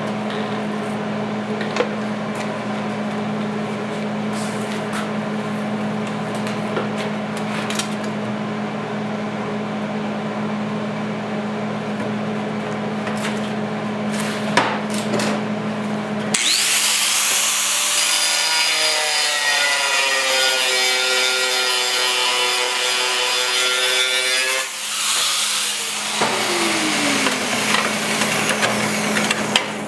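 Workshop metalwork on a rusted steel motorcycle seat pan: a steady hum with scattered clicks and scraping, then a high-speed rotary cutting tool runs loud and shrill for about ten seconds from just past halfway, its pitch dipping as it bites into the metal before it spins down.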